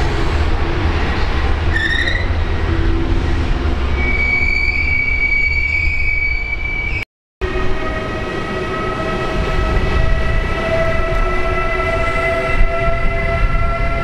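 A train running through with a steady low rumble and drawn-out high-pitched squealing tones. There is a brief rising squeak about two seconds in. The sound drops out for a moment halfway, and then several squealing tones go on over the rumble.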